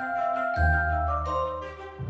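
Background music: instrumental, with sustained notes and a bass line that enters about half a second in.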